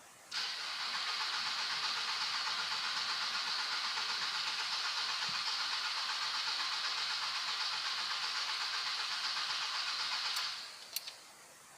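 Starter motor cranking the Audi A3's 1.9 TDI diesel engine for about ten seconds with an even pulsing beat, without the engine catching, while the newly refitted injection pump is still being bled of air. The cranking stops, followed by two sharp clicks.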